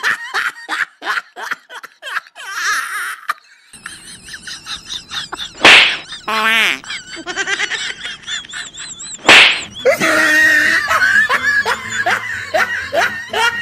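Repeated bursts of laughter, broken by two loud sudden hits about six and nine seconds in, with wavering, warbling tones between them.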